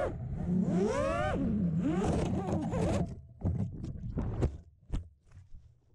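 Miniquad's four T-Motor F60 Pro 2207 brushless motors whining under throttle, pitch rising and falling twice. About three seconds in the motor tone stops and a run of short knocks and scrapes follows as the quad tumbles into grass and brush, dying away near the end.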